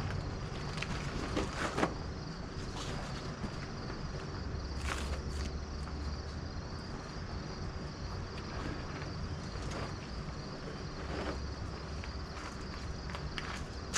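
Outdoor ambience with a steady low hum and a steady high insect-like drone. Scattered short crunches run over it, like footsteps on a gravel site.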